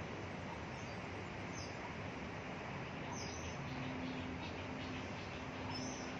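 Steady background noise with a few faint, short high chirps from birds, twice standing out, about three seconds in and near the end.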